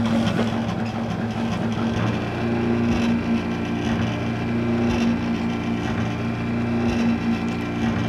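Stepper motors driving the mirrors of a club scanner light, making a loud steady hum whose pitch changes every second or two as the mirrors move. The unit is still making a lot of noise.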